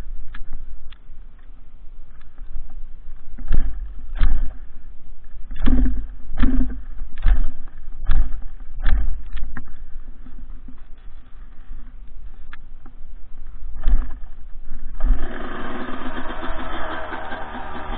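Suzuki RM 125 two-stroke dirt bike being kick-started: a series of irregular kicks with thumps for about fourteen seconds. The engine then catches and keeps running with a steady buzz.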